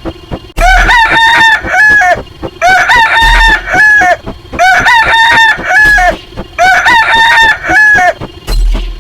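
A rooster crowing sound effect, played four times in a row, each crow about a second and a half long, over a low thumping beat.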